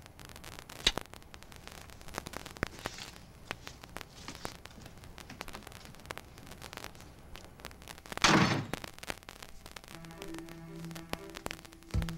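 Quiet room sound with faint scattered crackle, then a short soft thud about eight seconds in. Soft sustained music comes in near the end.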